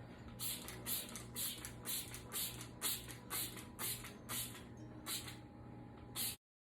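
Trigger spray bottle of foaming oven and grill cleaner being squeezed over and over, short hissing squirts about two a second, cutting off suddenly near the end.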